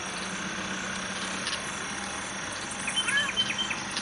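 Outdoor night ambience: a steady hiss with a faint hum, and about three seconds in a quick run of about five short, high chirps.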